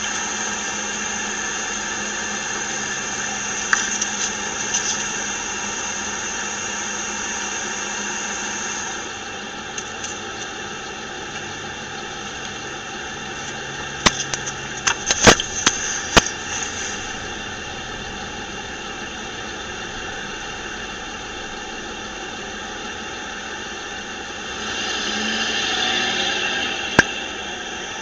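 Steady road and engine noise inside a moving car, with a hissy, poor-quality recording. A few sharp clicks come about halfway through, and the noise swells briefly near the end.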